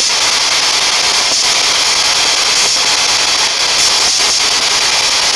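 Loud steady hiss of radio static from a P-SB7 spirit box sweeping the radio band, with a few faint brief breaks in it.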